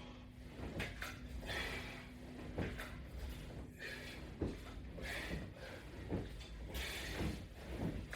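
A person breathing out hard in a rough rhythm, about once every one to two seconds, with each rep of a sit-up or crunch workout, mixed with light knocks and creaks from the exercise equipment.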